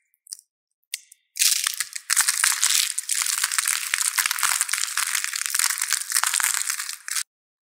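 Thin, dry soap plates being crushed and crumbled between the fingers: a few faint clicks, then about a second and a half in a dense run of fine crackles and snaps that stops suddenly near the end.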